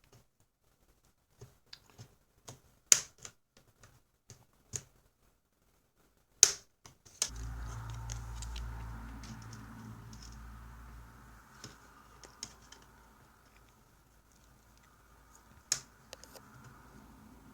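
Sharp plastic clicks and snaps of a laptop screen bezel being pried loose from its clips, the loudest about three seconds in and again about six and a half seconds in. About seven seconds in a low rumble starts and fades away over several seconds.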